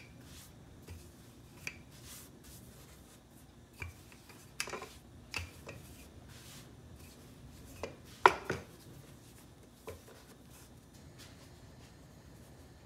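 Wooden rolling pin rolling out naan dough on a floured wooden cutting board: quiet rolling with scattered light knocks of the pin and hands against the board, the loudest about eight seconds in.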